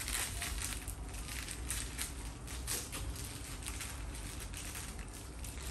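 A small plastic seasoning sachet crinkling as it is handled and torn open, then its white granules poured out into a large aluminium bowl, making a continuous run of irregular crackles and rustles.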